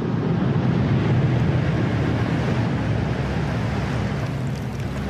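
Steady underwater rushing and rumbling water noise, with most of its weight low down.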